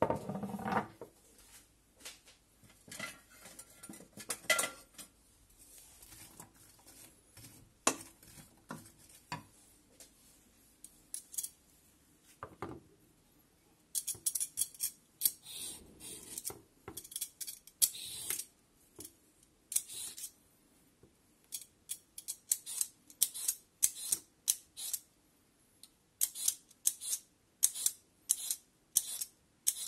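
A short knock at the very start, then scattered scrapes. From about halfway, a Y-peeler scrapes strips off a carrot in repeated strokes. Near the end, a kitchen knife cuts the carrot on a wooden chopping board in quick, regular strokes, about two a second.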